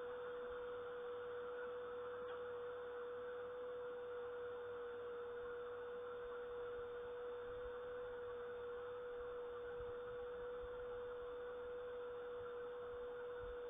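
A steady hum on one unchanging pitch, with a soft even hiss underneath.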